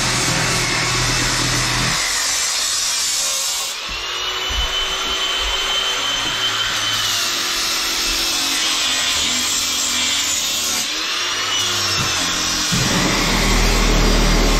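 Cordless DeWalt angle grinder running under load as its disc cuts and grinds. Through the middle its motor whine dips and rises again several times as the load on the disc changes.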